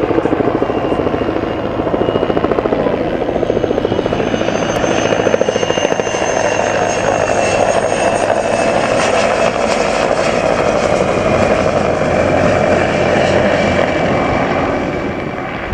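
Mil Mi-2 helicopter flying past close, its twin turboshaft engines and rotor heard as a fast steady beat of the blades with a high turbine whine. The whine comes in a few seconds in and drops slightly in pitch as the helicopter passes.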